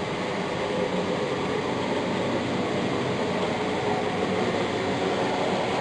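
Model trains running on a layout: a Big Boy steam locomotive model and a diesel pulling a track-cleaning car, giving a steady rolling rumble of wheels and motors on the track.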